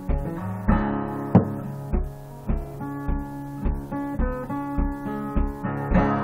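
Steel-string acoustic guitar played solo, plucked notes ringing over a steady low thump on the beat, a little under two beats a second.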